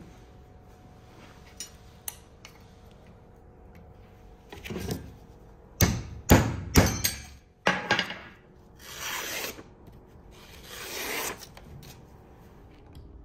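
A steel knife blade cutting through plastic-coated wire against a wooden block: a cluster of sharp knocks and scrapes about five seconds in, then two longer rasping strokes.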